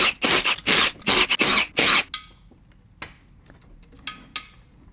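Cordless power wrench on a 19 mm socket hammering flex plate bolts loose in a string of short loud bursts that stop about two seconds in. A few light clicks and knocks follow.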